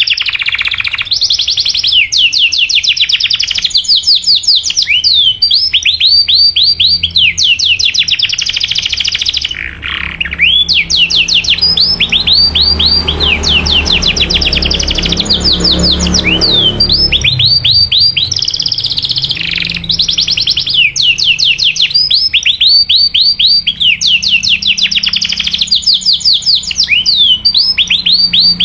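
Domestic canary singing fast trills of rapidly repeated, falling 'cuit cuit' chirps, almost without pause. This is the calling song that breeders play to rouse other canaries into singing. A low rumble rises in the background around the middle.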